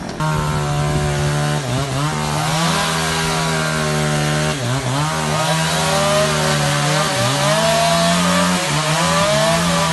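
Chainsaw running at high speed and cutting wood, its pitch dipping briefly about three times as the chain bites into the fallen tree's trunk and the engine bogs under load.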